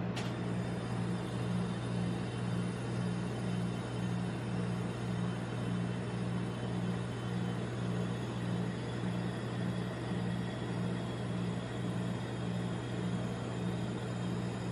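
A steady low hum that pulses regularly a little more than once a second, over a faint even hiss.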